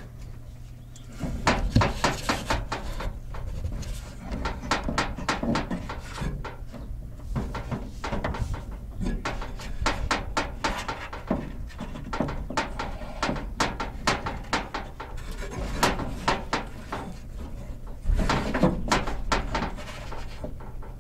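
Hands working metal hardware onto an inverter's DC terminal: irregular clicking and rubbing of cable lugs, washers and a nut being lined up and threaded on, in bursts.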